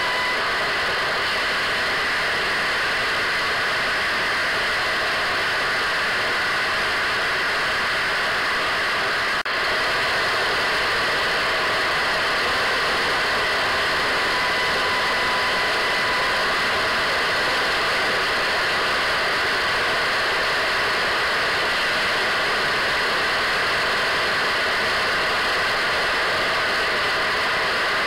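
Radio static: a steady, loud hiss with faint steady whistle tones running through it, dropping out for a split second about nine and a half seconds in.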